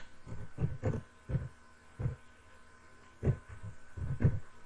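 Computer keyboard being typed on slowly, one key at a time: about eight dull, uneven taps over a faint steady electrical hum.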